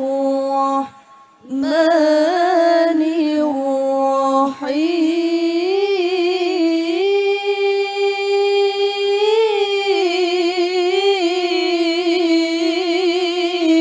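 A female reciter chants the Quran in the melodic qiroah style into a microphone, unaccompanied. The notes are long and drawn out and the pitch wavers in ornaments. There is a short breath pause about a second in, then one long, held phrase from about four and a half seconds on.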